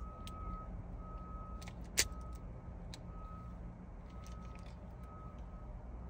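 Car's electronic warning chime beeping about once a second, each beep a steady half-second tone, over a low steady hum. A single sharp click about two seconds in, as of the key or ignition cylinder being worked.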